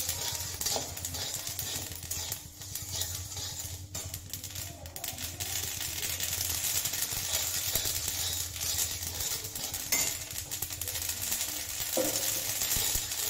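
A steel spatula stirs and scrapes chickna seeds as they dry-roast in an aluminium kadhai over a gas burner, giving a steady run of fine rattling and scraping. A single louder knock comes near the end.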